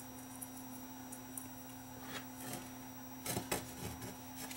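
Faint handling noises from a bare modem circuit board being turned and repositioned in the hands: light scrapes and clicks about two seconds in and again past three seconds, over a steady low hum.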